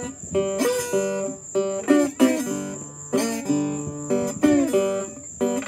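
Acoustic guitar being played: picked notes and chords in a lively rhythm, with frequent bends in pitch.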